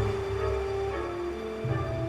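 Background music: a melody of held notes that step from one to the next every half second or so, over low bass notes.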